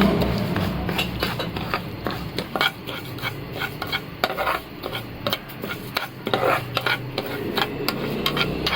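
A spoon stirring ghee and sugar in a pan over the flame, with frequent short, irregular scrapes and clicks against the pan as the sugar melts into the ghee.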